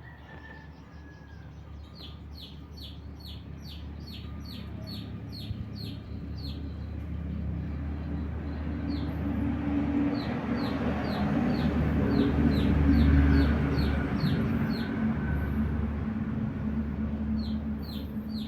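A bird chirping over and over in quick runs of short, high notes that slide downward, about three or four a second. Under it a low rumble swells, is loudest about two-thirds of the way through, then eases off.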